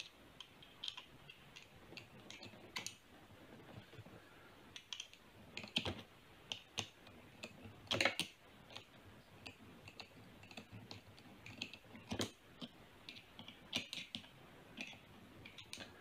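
Faint, irregular clicking of a flat-bladed screwdriver turning the worm screw of a metal hose clamp, tightening it around a rubber joiner hose on a vacuum cleaner pipe, with a few sharper clicks spread through.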